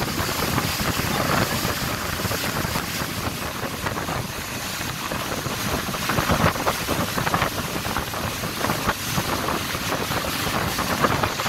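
Combat Boat 90 running at speed: a steady rush of wind buffeting the microphone over the churning water of its wake and the boat's engine noise, with a few stronger gusts about halfway through and near the end.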